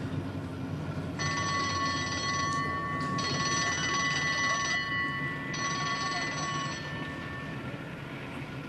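An alarm bell ringing continuously from about a second in until near the end, most likely a police car's bell, over the low rumble of a car running, heard from inside the car.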